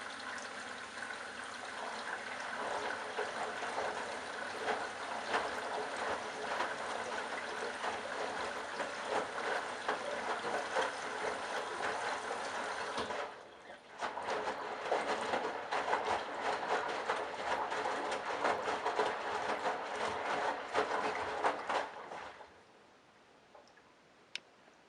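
Candy Bianca washing machine with water rushing and splashing into it, a steady noisy spray. It breaks off briefly about halfway through, resumes, then stops near the end, leaving only a couple of faint clicks.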